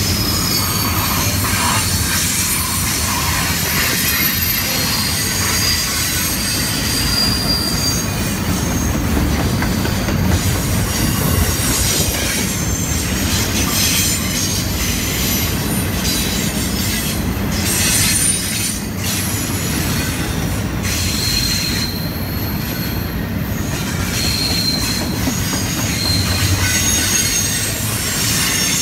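Double-stack intermodal well cars rolling steadily past: a continuous rumble of steel wheels on rail, with brief high wheel squeals now and then.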